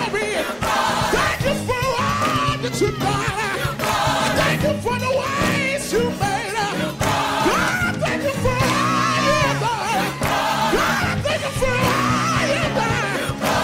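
Gospel choir singing with instrumental accompaniment; voices hold wavering sustained notes over steady low chords.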